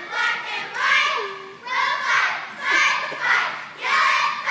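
A cheerleading squad of young girls shouting a cheer in unison, one chanted word or beat about once a second.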